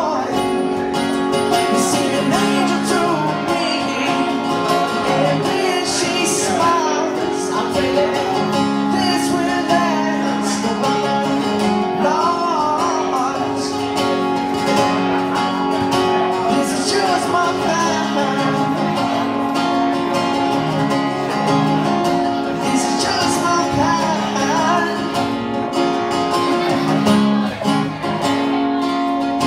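A live acoustic song: acoustic guitar played with a man singing over it.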